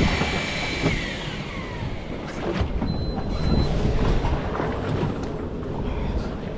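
Wind buffeting the microphone and steady sea and boat noise on a small open fishing boat, with a whine that falls in pitch over about the first second.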